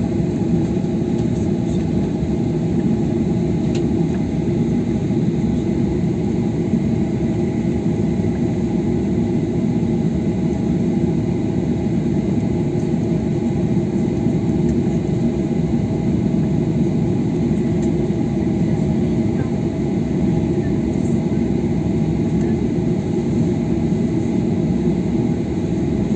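Steady engine and cabin noise inside a Boeing 737 jet airliner as it taxis, its engines at low taxi power giving an even hum with a few steady tones.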